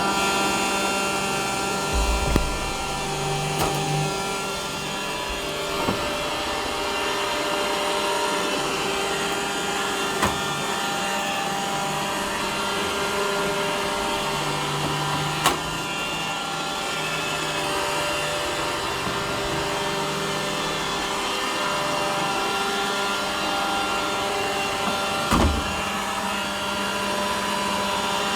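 Robot vacuum cleaner running: a steady motor whirr with several steady tones over a hiss, a few sharp clicks, and two short low thumps, one about two seconds in and one near the end.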